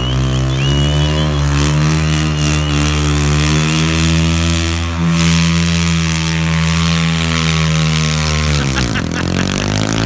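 A motor engine running steadily at a constant pitch. Its pitch dips sharply and then recovers near the end.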